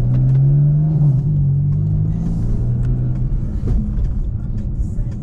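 BMW F82 M4's twin-turbo inline-six engine and exhaust droning steadily while driving, heard from inside the cabin. About three seconds in the drone eases off, leaving a rough low rumble of road and engine.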